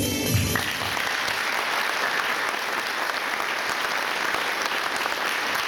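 Music cuts off about half a second in, then an audience applauds steadily.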